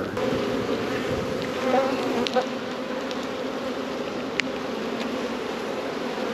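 A honey bee colony buzzing over its opened brood box, a steady dense hum, with a couple of faint sharp clicks.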